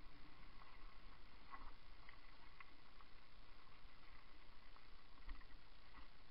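Canyon mountain bike rolling over a leaf-covered dirt trail: a low, steady rumble of tyres on leaves and ground, with small ticks and rattles from the bike. There is one louder thump about five seconds in as the bike jolts over rough ground.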